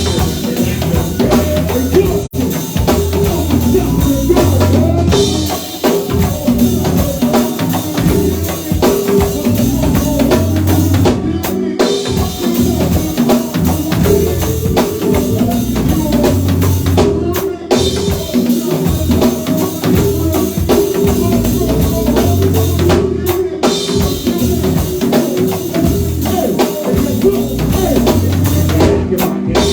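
A live band playing, with a drum kit's bass drum, snare and rimshots keeping a steady beat under the instruments. The whole band drops out briefly about every six seconds, at about 11, 17, 23 and 29 seconds.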